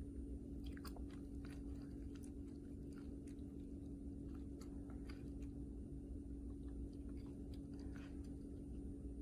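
Faint, irregular small clicks and taps of a plastic wireless number pad being handled and its keys pressed, over a steady low electrical hum.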